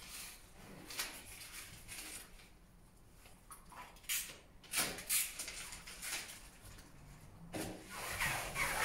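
TESCON EXTORA adhesive tape being unrolled and pressed onto a SOLITEX EXTASANA membrane joint with a PRESSFIX tool: irregular rustling, crackling and scraping with a few sharper clicks, busier near the end.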